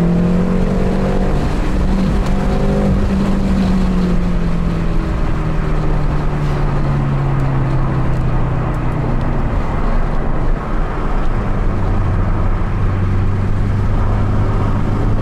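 BMW M6's twin-turbo V8 heard from inside the cabin under way. The engine note climbs for the first three seconds under acceleration, then eases down steadily and drops to a lower pitch about twelve seconds in, over steady road noise.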